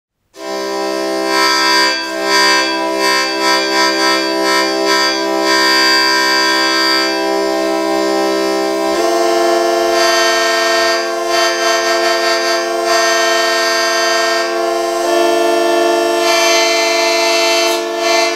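Hyper-hurdy-gurdy, a hurdy-gurdy fitted with sensors and digital processing, playing a tune over sustained drone notes, with a reverb whose amount follows the player's finger pressure on the keys. It starts about half a second in, the held low notes change twice, near the middle and again about three quarters through, and the sound pulses rhythmically at times.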